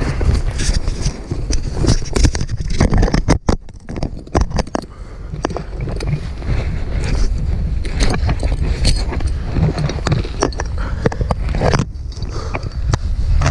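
Heavy wind buffeting the microphone, a constant low rumble, mixed with rustling, scraping and knocking of parachute gear and clothing against dry grass; it drops off briefly a few seconds in.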